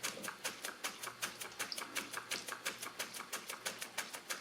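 KJ Miller toy steam beam engine running steadily, giving a rapid, even clicking of about six ticks a second.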